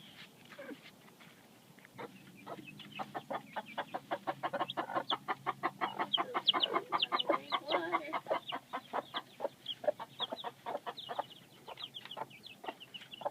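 Chickens clucking in a rapid run of short calls, several a second, starting about two seconds in.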